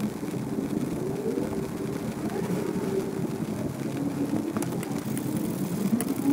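A motor engine runs nearby, its pitch rising and falling a few times. A few sharp clicks come near the end.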